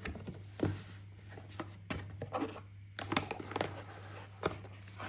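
Drone retail box and its packaging being opened and handled: a string of irregular light clicks, taps and brief rustles, over a steady low hum.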